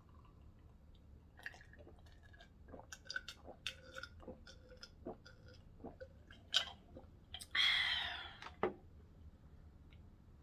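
Close mouth sounds of someone chewing a sandwich: a run of short wet clicks and smacks. A louder rasping noise lasting under a second comes near the end.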